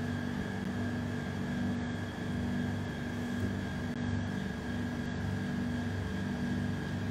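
Steady mechanical hum with a faint high whine running through it, unchanging throughout.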